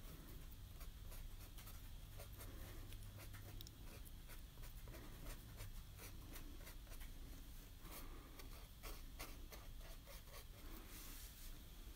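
Faint, irregular taps of a fine paintbrush tip dabbing small dots of paint onto a canvas, several a second.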